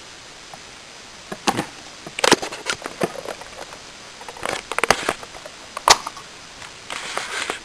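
Plastic shell of an Empire Prophecy Z2 paintball loader being handled: a series of sharp clicks and knocks, with a short rustle near the end.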